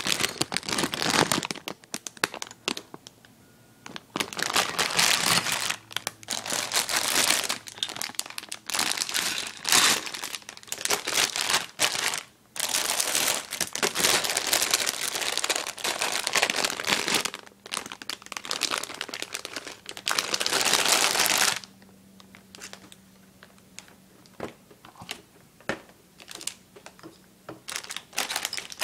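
Clear plastic bags of Lego Technic pieces crinkling and rustling as they are handled, in repeated bursts. About two-thirds of the way in the rustling stops, leaving quieter handling with occasional light taps.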